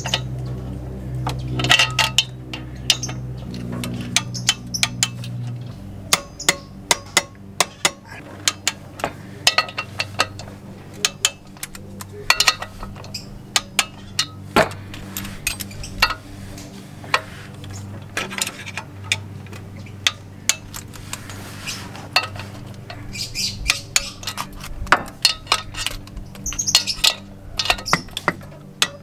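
Ratcheting torque wrench clicking and clinking against the clutch pressure-plate bolts as they are tightened down to 30 N·m. The clicks come irregularly, in short clusters.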